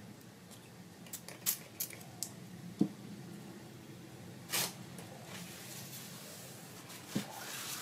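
Quiet hand-crafting noises: a few light taps and clicks of card and supplies on a craft mat, and a brief paper-towel rustle about halfway through as the mat is wiped, over a faint steady hum.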